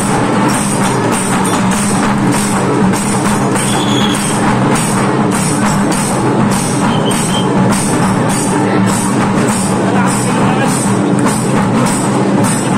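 Loud drum-driven procession music with a steady beat of about two strokes a second.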